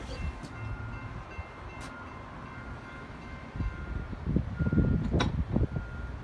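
Railroad crossing warning bell ringing faintly as the crossing signals activate for an approaching CSX freight train. A low rumble swells about four seconds in.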